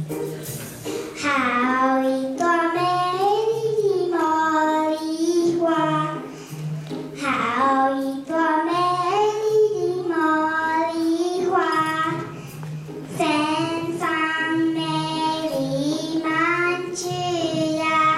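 A child singing a song solo in long, held notes with a slight waver, pausing briefly between phrases, over a soft accompaniment with low repeated notes.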